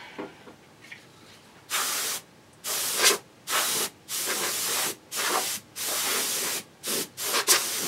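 Canned-air duster blowing dust out of a computer chassis in about eight short hissing blasts, starting a little under two seconds in.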